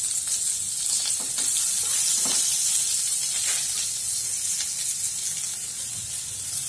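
Chopped onions sizzling steadily in a little hot oil in a nonstick pan, now beginning to brown, with a few faint scrapes as they are stirred.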